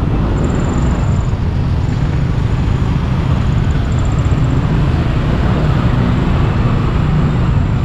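A moving road vehicle's steady engine and road rumble on a continuous drive.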